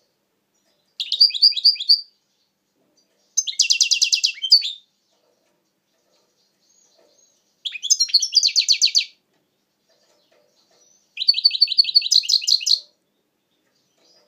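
European goldfinch singing: four short phrases of quick, evenly repeated high notes, each lasting a second or so, separated by pauses of a couple of seconds.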